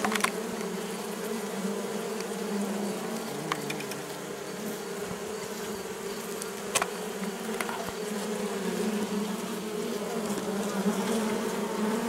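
Honeybee colony buzzing, a steady hum heard from inside the top bar hive, with a few light clicks.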